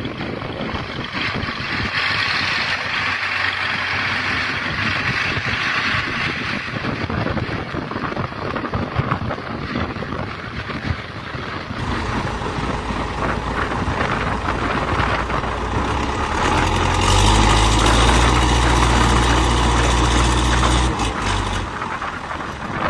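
Wheeled farm tractor's diesel engine running steadily under load as it pulls a plough through the soil. It grows louder and deeper for a few seconds near the end.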